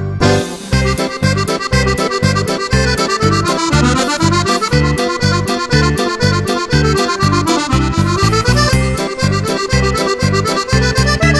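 Background music with a fast, steady beat and a busy melody.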